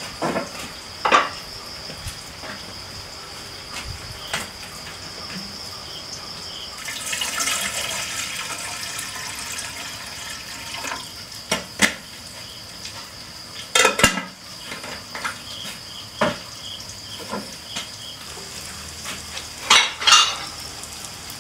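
Pots, pans and utensils clinking and knocking now and then as food is prepared, with a few seconds of liquid pouring about a third of the way in. A steady high-pitched drone of insects runs underneath.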